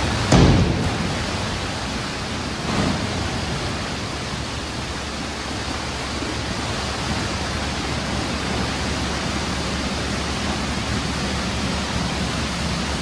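Wet garbage pouring in a steady rushing, splattering stream from a tipped garbage truck body into a transfer-station pit, with a low steady rumble underneath. A loud thump comes about half a second in and a smaller knock near three seconds.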